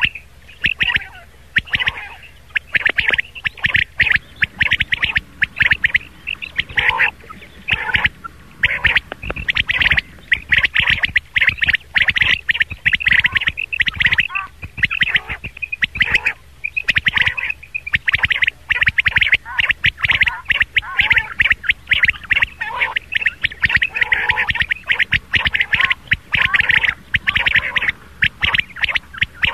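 Rain quail calling: a rapid, unbroken series of short, sharp, high calls, one after another, pausing only briefly now and then.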